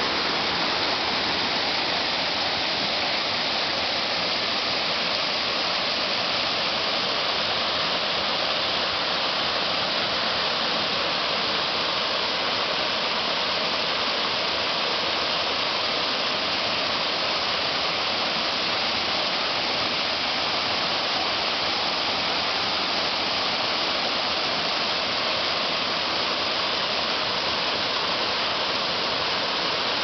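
Small waterfall and the water sliding over the rock below it: a steady, unbroken rush of falling water.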